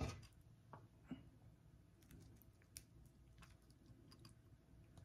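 Near silence with a few faint, soft clicks and taps from handling wet food, as a folded birria tortilla slice is dipped into a bowl of consommé.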